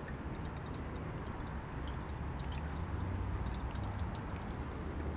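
Faint scattered crackling from a frying pan on a portable gas burner, over a low, steady rumble.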